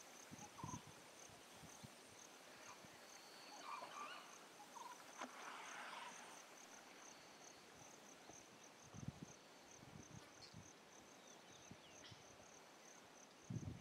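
Faint ambience dominated by an insect's high chirp, repeating steadily several times a second. A few faint low thumps come about nine and ten seconds in.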